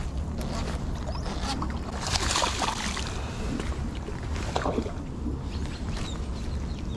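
Hooked largemouth bass splashing at the surface next to a concrete lake wall as it is reeled in, with bursts of splashing about two seconds in and again a little after four seconds. Steady wind rumble on a chest-mounted microphone underneath.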